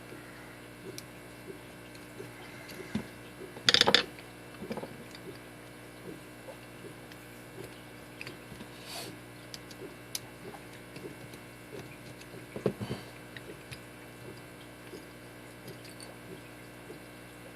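Schlage SC1 deadbolt being taken apart by hand: scattered small metal clicks and knocks, with a louder clatter about four seconds in and another near thirteen seconds.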